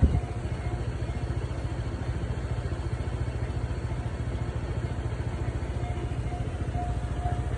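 A level-crossing warning bell dings about twice a second. It drops away for a few seconds and comes back near the end, over a steady low idling engine. A single sharp knock sounds right at the start.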